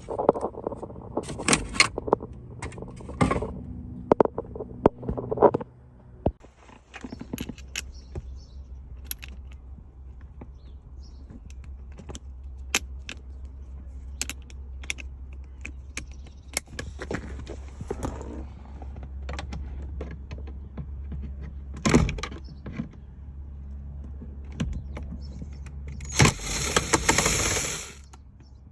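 Scattered clicks, knocks and rattles of tools and loose car interior parts being handled during a teardown, over a steady low hum. Near the end a loud hissing, noisy burst lasts about two seconds.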